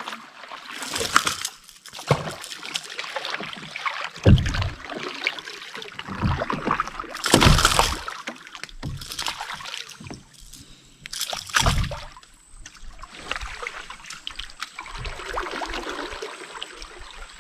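Water splashing and sloshing against a canoe as a hooked fish is played and landed, with several sharper splashes at irregular intervals.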